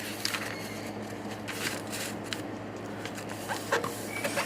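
Sheet of paper being folded and creased by hand: soft rustling with scattered small crinkles and scrapes.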